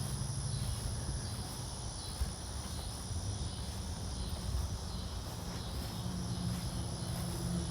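Steady outdoor background noise: a low rumble with a thin, steady high whine above it.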